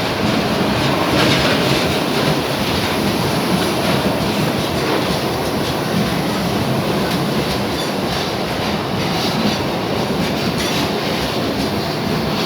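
Loaded freight wagons rolling past at close range, a steady heavy rumble of steel wheels on rail with repeated clacks over the rail joints.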